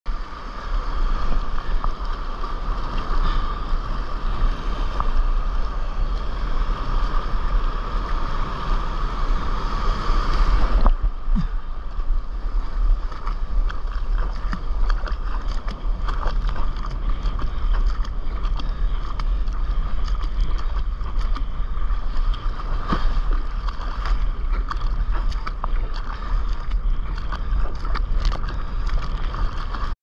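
Whitewater rushing and splashing around the nose of a surfboard being paddled out through broken waves, heard close up with wind and water buffeting the board-mounted camera's microphone. The sound turns duller about eleven seconds in.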